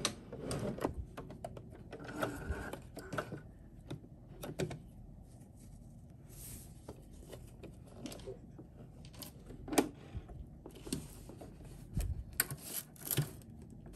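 Fabric being handled and positioned at a sewing machine: scattered light clicks and knocks with soft rustling, coming irregularly rather than in a steady rhythm. The sharpest knock comes about ten seconds in, and there is a quick run of clicks near the end.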